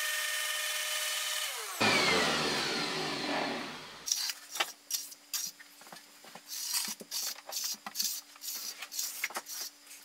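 Random orbital sander running on wet concrete; about two seconds in it gets louder and then winds down with a falling whine as it is switched off. Then a hand trowel scrapes over the wet concrete surface in short, irregular strokes.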